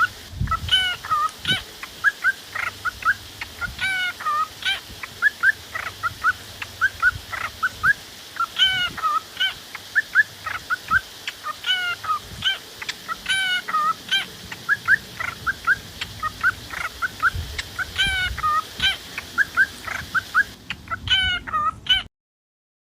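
Fowl calling over and over in short, clipped calls, many in quick succession, as from a flock. The calls stop abruptly near the end.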